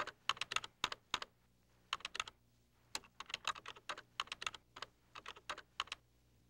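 Typing on a computer keyboard: irregular runs of quick keystroke clicks as an email address is keyed in, stopping shortly before the end.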